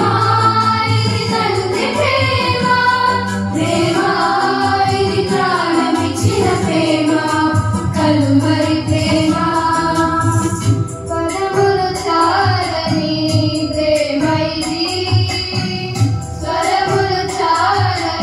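A group of girls singing a song together through microphones and a PA, over a steady electronic keyboard accompaniment.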